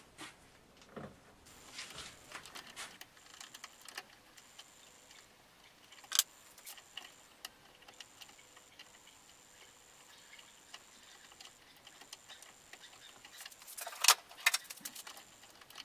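Scattered small clicks and taps of small metal tools and a plastic-and-metal lock knob being handled, with two louder sharp clicks, about six seconds in and near the end.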